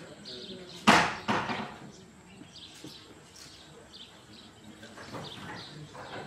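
Two sharp knocks about a second in, the first loud and the second weaker about half a second later, each dying away quickly. Birds chirp faintly throughout.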